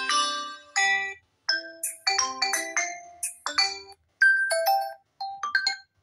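Smartphone speaker playing a run of short preset ringtone previews one after another: about five brief clips of bright, chiming notes, each ending or cut off after a second or two, with short silences between.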